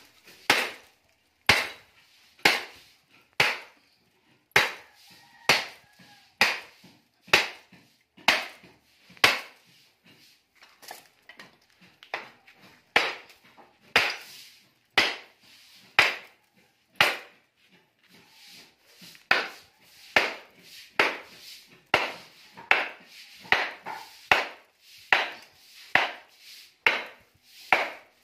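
Repeated sharp blows of a hand tool on the transformer coil of an old welding machine as it is broken apart for its copper windings. The strikes fall about once a second, ease off to lighter knocks about ten seconds in, then come quicker, nearly two a second, in the second half.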